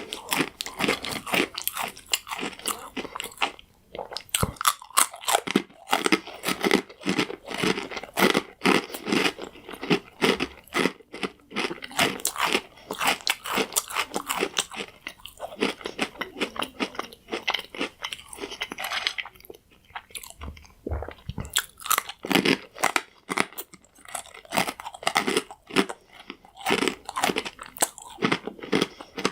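Croutons being bitten and chewed with a close, loud crunch: quick crackly chews in runs, with a few short pauses between mouthfuls.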